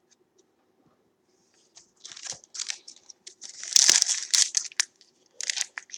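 Foil wrapper of a football trading-card pack being torn open and crinkled, in a run of scratchy rustles that starts about two seconds in and is loudest near the middle.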